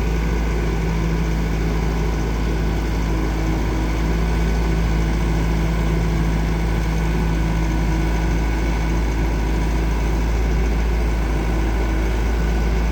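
2014 Bobcat S570 skid steer's diesel engine idling steadily, a deep even rumble with a constant hum.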